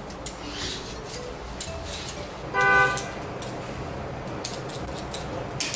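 Hand vegetable peeler scraping a raw potato in short, irregular strokes. A single short horn-like toot sounds about two and a half seconds in and is the loudest thing heard.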